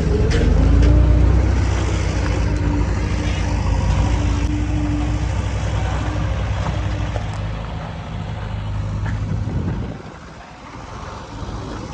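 Heavy diesel engine running, building up to its loudest about a second in, then easing off after about seven seconds and dropping lowest around ten seconds in.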